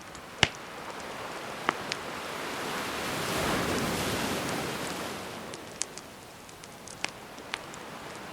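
A gentle ocean wave washing in and drawing back, swelling to its peak about halfway through, over a wood fire crackling with several sharp pops; the loudest pop comes just after the start.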